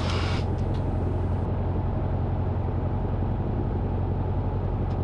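Cessna 150's Continental O-200 four-cylinder engine and propeller running at low taxi power, heard inside the cockpit as a steady low drone.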